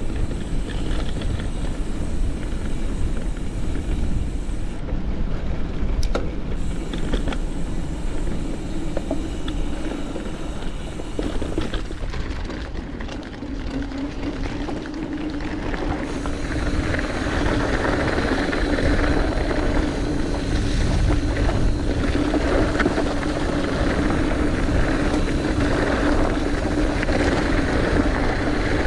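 Wind rumbling over the microphone and tyres rolling on a dirt trail as a mountain bike is ridden, with a steady hum joining about halfway through.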